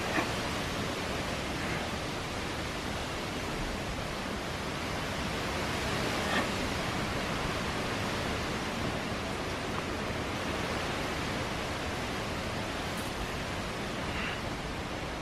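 Steady outdoor background hiss, with a few faint brief sounds about a quarter second in, around six seconds in and near the end.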